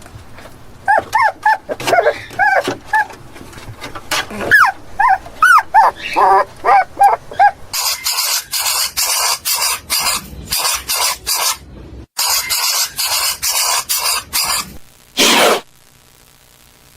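Dog whimpering and yelping in short, high, rising-and-falling cries for the first half. Then a run of short hissing bursts, about three a second, with one longer hiss near the end.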